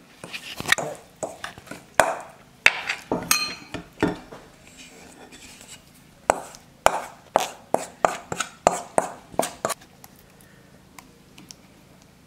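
A kitchen utensil scraping and knocking against a mixing bowl and a small baking pan as thick cornbread dough is moved into the pan. Irregular scrapes and knocks come first, then a quick run of sharp knocks about twice a second in the second half.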